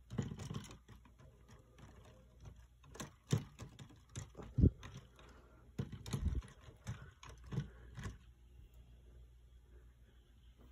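Lego plastic clicking and knocking as the treehouse roof section is handled and fitted back onto the model: irregular small clatters, the sharpest about four and a half seconds in.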